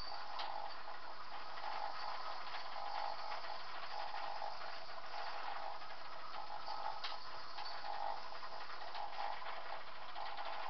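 Model railway layout running: a steady mechanical whirr with a soft, regular pulse a little faster than once a second and a few faint clicks.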